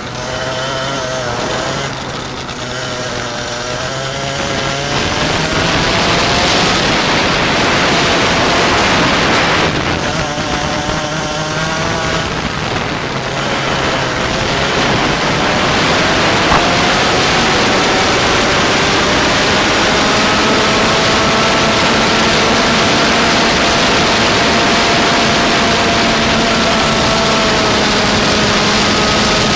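Go-kart engine running on track, its pitch rising and falling in the first half and then held steadier through the second half, under a loud rushing noise.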